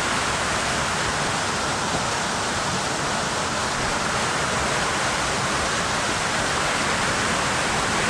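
Waterfall cascade and rushing stream water, a loud, steady, unbroken rush.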